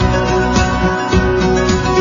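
Background music track led by guitar, with a steady beat.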